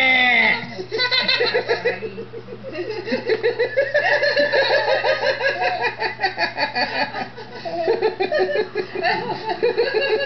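A toddler's loud, drawn-out vocal shout cuts off about half a second in. It is followed by long runs of hearty laughter in quick, choppy bursts.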